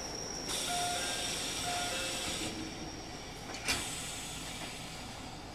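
Inside a JR Central 313 series train: a hiss of air for about two seconds with a few short tones over it, then a single sharp knock.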